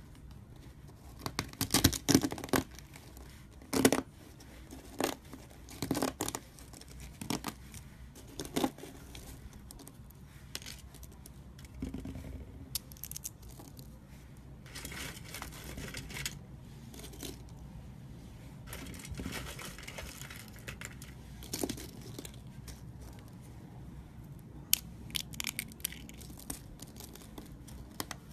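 Dry shaved soap curls crunching and crackling as a hand squeezes and crumbles a pile of them. Clusters of sharp crackles come first, then softer rustling as the shavings are stirred, with a few more crackles near the end.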